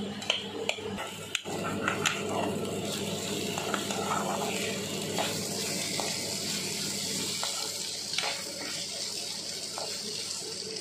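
Steady hissing of food cooking in a hot pan, with spatula clicks and scrapes against the metal in the first couple of seconds and a few more now and then.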